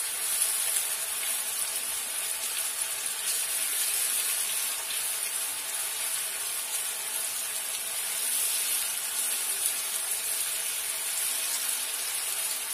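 Chopped onions sizzling in hot oil in a frying pan as they are stirred with a silicone spatula: a steady high hiss. The onions are being fried to a light brown.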